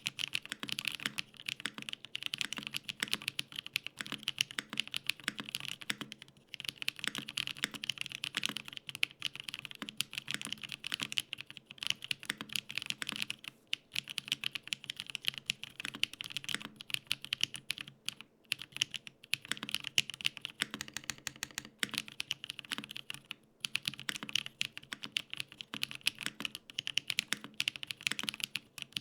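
Steady fast typing on a Gok 7V custom mechanical keyboard built with lubed Holy Panda tactile switches on an FR4 plate with no foam, and GMK keycaps: a dense run of key clacks with a few short pauses.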